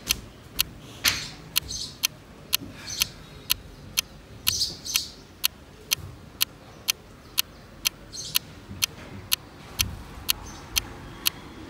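Clock ticking steadily, about two sharp ticks a second.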